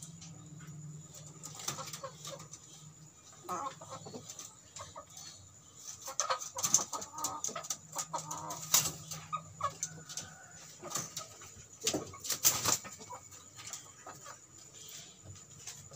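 Indonesian native village chickens (ayam kampung) clucking at irregular intervals, with scattered sharp clicks and knocks; the loudest knocks come at about 6.5, 9 and 12.5 seconds.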